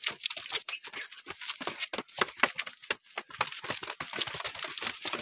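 Running footsteps of several people on stone steps: a quick, irregular patter of shoes slapping and scuffing the concrete.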